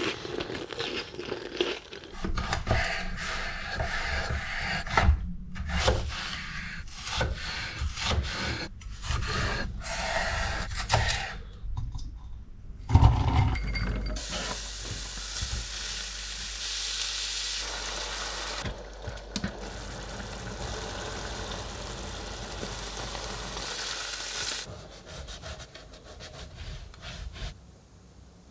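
Food-preparation sounds: irregular scraping, rubbing and tapping of utensils and food for about twelve seconds, then a loud knock, then about ten seconds of steady sizzling of food frying in oil, which fades near the end.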